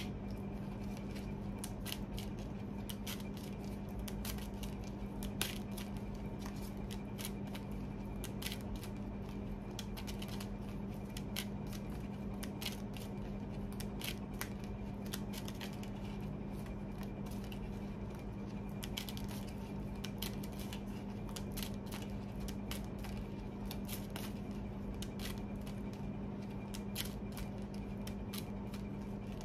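Oracle card deck shuffled by hand: a long run of irregular, quick card clicks and flicks. A steady low hum runs underneath.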